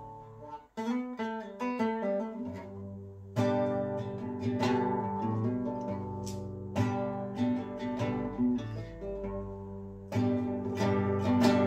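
Nylon-string classical guitar played solo: lighter picking for the first few seconds, then fuller strummed chords from about three seconds in.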